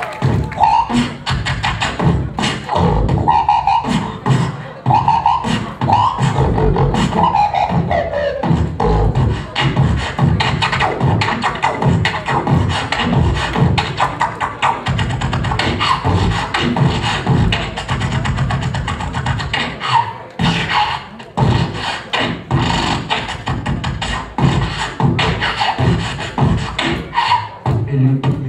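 Solo beatboxing into a handheld microphone: fast vocal kick, snare and hi-hat sounds in a steady rhythm, with a vocal melody line layered over the beat for roughly the first eight seconds.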